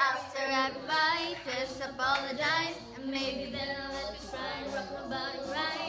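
A woman singing into a handheld microphone, her voice wavering in pitch with vibrato on held notes.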